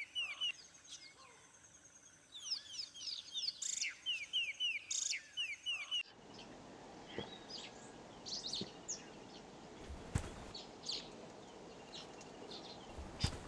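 Birds singing: a phrase of quick, falling chirps repeated several times. About six seconds in it cuts to a different outdoor recording with scattered short bird calls over a steady hiss and a few sharp clicks.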